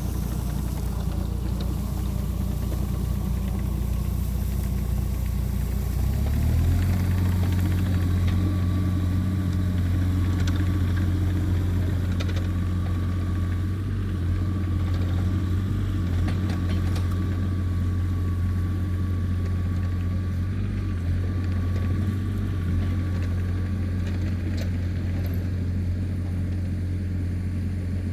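CAT excavator's diesel engine running steadily while the machine pushes topsoil, its note stepping up and getting a little louder about six seconds in as the revs rise under load. A few faint knocks sound over the engine.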